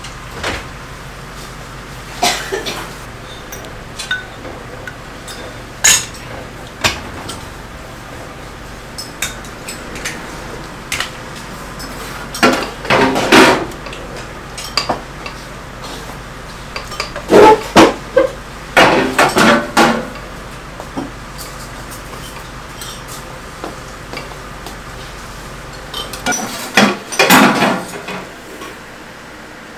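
Tableware clattering: spoons and metal bowls clinking, with a scattering of single clinks and a few bursts of louder clatter, over a steady low hum.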